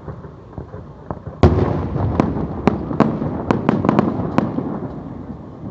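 Fireworks display: a salvo of aerial shells bursting about a second and a half in, followed by a rapid string of sharp bangs and crackling that fades toward the end.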